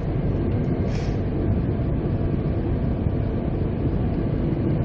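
Steady running rumble of the Spirit of the Outback passenger train, heard from inside the moving carriage, with a brief hiss about a second in.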